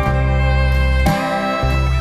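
Instrumental country-style music with fiddle and guitar over heavy bass notes that change every second or so.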